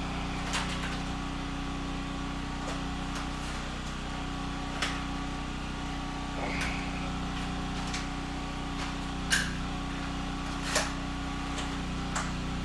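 Portable generator running steadily, a constant hum, with a handful of short sharp clicks and knocks over it.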